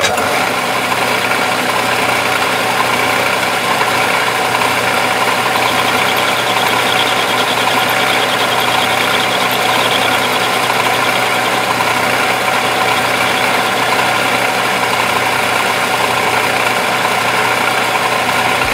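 Metal lathe running steadily with its chuck spinning, the tool taking light cuts on the head of a hardened steel cap screw. A constant machine hum and whine of the drive runs throughout.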